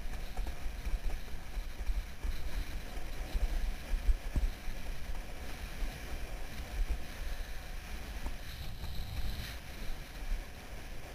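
Wind buffeting an action camera's microphone as a windsurfer planes across the water on a speed board: a gusty, fluttering low rumble over a steady hiss of water rushing past the board.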